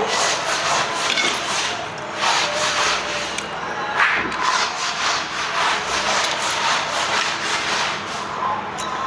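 Close-miked eating of goat leg meat: chewing and gnawing that makes a loud, rough rasping noise of many repeated strokes.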